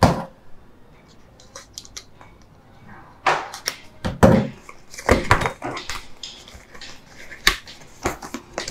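A small cardboard box being opened and its contents handled: irregular rustling, scraping and a few sharp clicks and taps of cardboard and paper.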